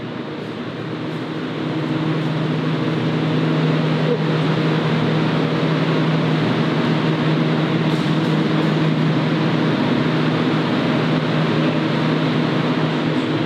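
Refrigeration unit of a meat chiller cold room running: a steady low hum with a rushing air-fan noise over it. It grows louder over the first two seconds, then holds steady.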